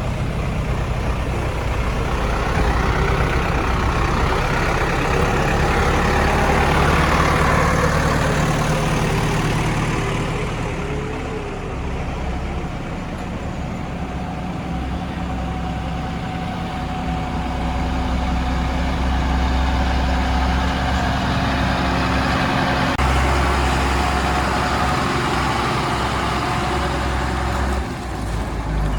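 Heavy diesel engine running steadily, its speed stepping up and down a few times, with a higher whine that rises and falls during the first ten seconds or so.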